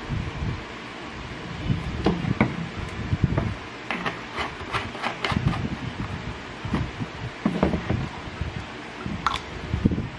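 Irregular knocks and thumps of things being handled, with a quick run of sharp clicks about four seconds in.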